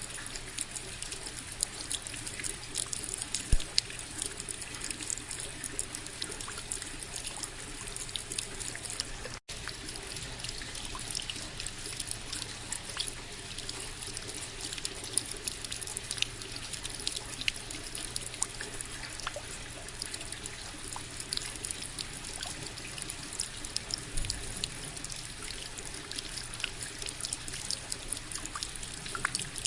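Steady rain with many distinct drops ticking over a constant hiss. The sound cuts out for an instant about nine seconds in and carries straight on.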